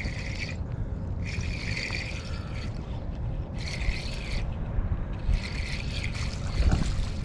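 Fishing reel being cranked in four short bursts while a hooked smallmouth bass is played, over a steady low rumble of wind and river.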